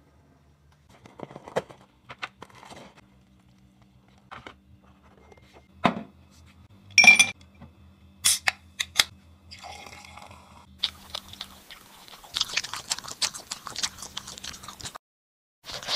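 A can of Coca-Cola is cracked open with sharp snaps of the pull tab and a short hiss, then poured over ice in a glass. The soda fizzes and crackles for several seconds.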